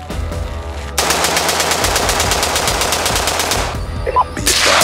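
Scoped AR-style rifle firing a fast, even string of shots starting about a second in and lasting nearly three seconds, followed by another loud burst near the end.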